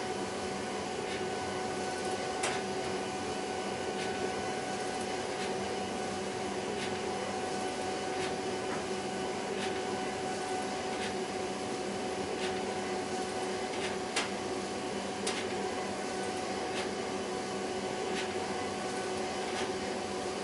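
HP Designjet 5000ps large-format inkjet printer printing: a steady whirring with a constant hum, broken by a light click about every one and a half seconds.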